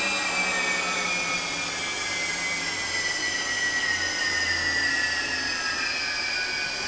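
Fadal 6030 HT vertical machining center's Cat 40 spindle running with a steady high whine that falls gradually in pitch as the spindle slows from around 7,600 RPM toward about 4,720 RPM. The spindle sounds smooth, "really nice".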